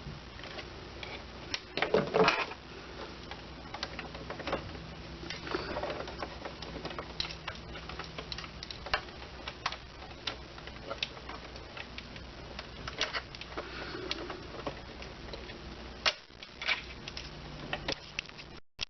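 Irregular small metal clicks, scrapes and knocks of a screwdriver working tight screws out of the plate of a Brother CS6000i sewing machine, with a few louder clinks, one about two seconds in.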